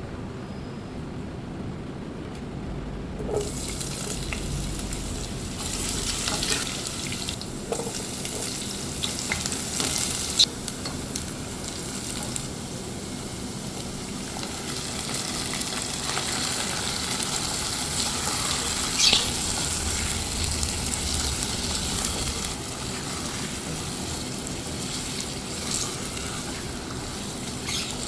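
Food frying in hot oil in a pan, sizzling, with a spatula stirring and scraping against the pan. The sizzle starts suddenly about three seconds in, as the food goes into the oil.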